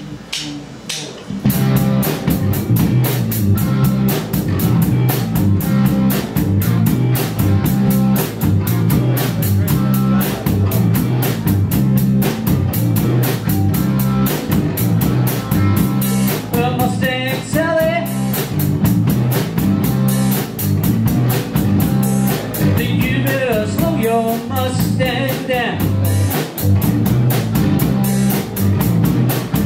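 A live rhythm-and-blues band (electric guitars and drums) playing an instrumental opening groove, a steady repeating low riff over the beat. The full band comes in about a second and a half in, and lead lines with bending notes stand out over the riff twice in the second half.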